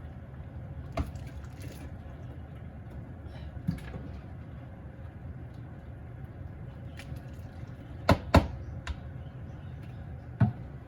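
A few sharp knocks and clunks of kitchen pots and utensils over a steady low rumble. The loudest are a quick pair about eight seconds in and a single knock near the end.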